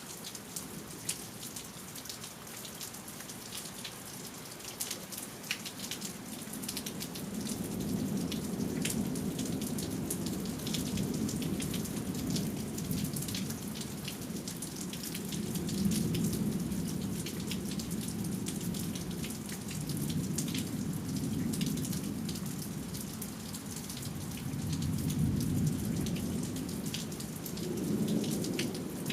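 Steady rain from a thunderstorm, with sharp drops ticking close by, and low thunder rumbling in several swells that rise and fade, starting about a quarter of the way in.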